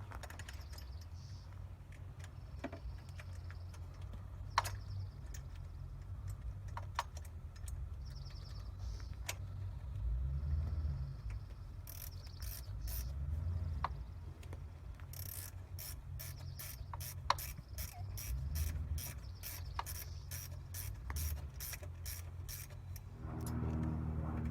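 Ratchet wrench clicking as the wastegate is bolted back onto the turbo: scattered clicks at first, then a steady run of about two or three clicks a second through the second half. A vehicle engine comes in near the end.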